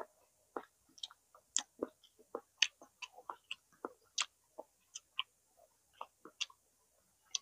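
Wet chewing and lip smacks of someone eating Chinese smoked chicken: irregular short smacks and clicks, a few each second.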